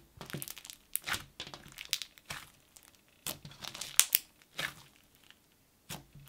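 Fingers pressing and poking a thick white glue-based slime packed with foam beads, giving irregular wet pops and crackles as air pockets burst under the fingers: the slime's bubble pops.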